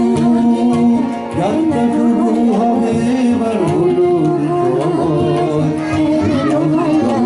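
Live performance of a Bengali popular song: a harmonium holding sustained notes, with tabla and singing.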